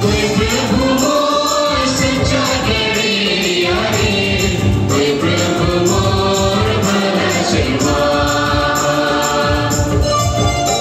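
A group of voices singing a devotional song over instrumental music with a steady drum beat.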